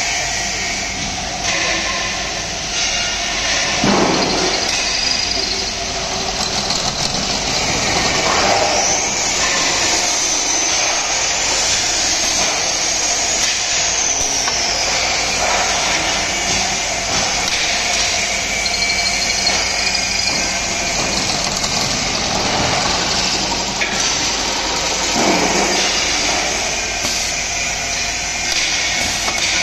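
An automatic scaffolding-pipe drilling machine running: electric drill-head motors and drilling through a metal scaffolding pipe make a steady mechanical noise. A high, wavering whine lasts about six seconds in the first half, and two falling swooshes come, one early and one late.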